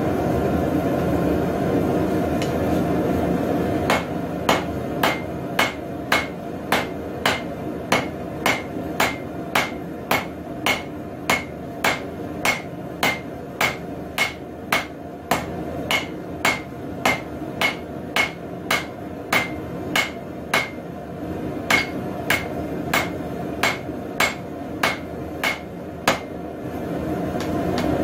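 Blacksmith's hammer striking steel square stock on an anvil in a steady, even rhythm of about two ringing blows a second, starting a few seconds in and stopping near the end. A steady low rushing noise runs underneath, loudest before and after the hammering.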